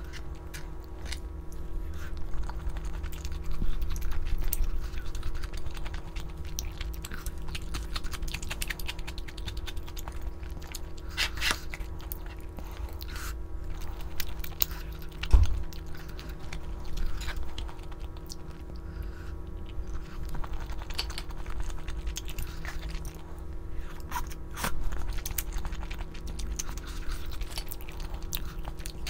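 Close-up eating sounds of a person chewing Buldak spicy stir-fried noodles and thin-sliced pork belly, with small wet mouth clicks over a steady low hum. One thump stands out about halfway through.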